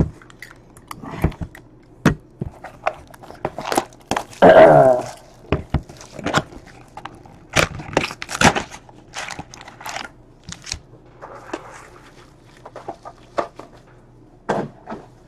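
Trading-card hobby boxes and sealed card packs handled on a tabletop: a string of cardboard knocks and taps with rustling and crinkling of the pack wrappers. One short voiced sound comes about four and a half seconds in.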